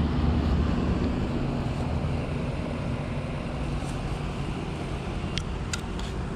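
Whirlpool heat pump outdoor unit running in cooling mode: the steady hum of its scroll compressor under the whoosh of the condenser fan. A couple of faint ticks come near the end.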